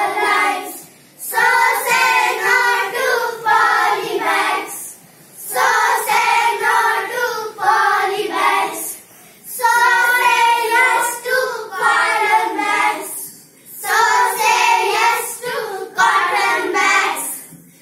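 A group of young children singing together in unison, in phrases of about four seconds with brief pauses between them.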